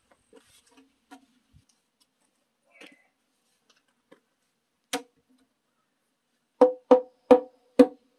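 Large wooden mallet knocking the foot of a timber post standing on a foundation stone, driving it sideways into place: one knock about five seconds in, then a quick run of four, each with a brief ringing note.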